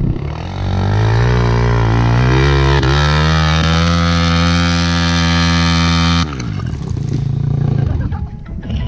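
Regulmoto dirt bike engine revving up over about two seconds and held at high revs for about three more, then dropping off suddenly to a rougher, lower running sound.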